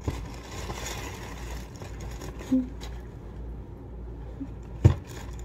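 Tissue paper rustling as hands dig into a small paper gift bag, then a single sharp thump near the end.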